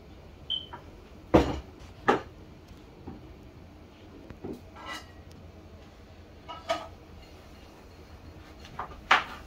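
Sporadic kitchen clatter: several separate knocks and clinks of dishes, pots and utensils being handled. The sharpest comes about a second and a half in, with another near the end.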